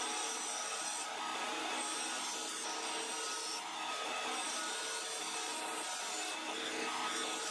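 Steel knife blade ground on a spinning belt-driven grinding wheel: a steady grinding hiss over the hum of the running wheel, with the rasp growing stronger in passes as the blade is pressed back on.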